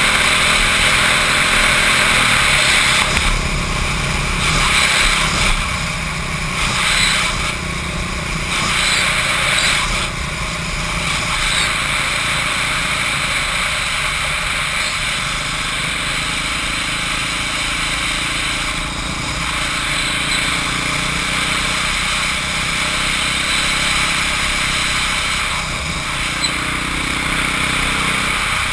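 Motorcycle riding a circuit at speed. The engine note rises and falls through the corners under a heavy rush of wind on the microphone.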